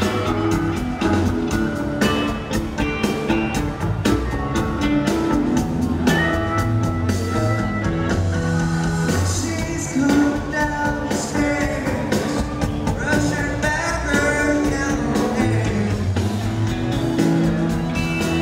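Live rock band playing with electric guitars, bass and drums, with a man singing lead over it from a few seconds in, recorded from within the concert crowd.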